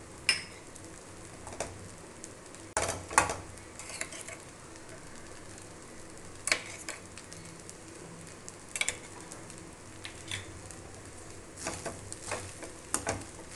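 A slotted steel spatula scraping and knocking irregularly against a kadai as rice and vegetables are stirred and tossed, over a faint steady sizzle of food frying in the pan.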